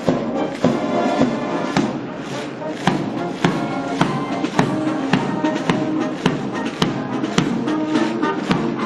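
Military band playing a march, with sustained pitched notes over a steady drum beat a little under two beats a second.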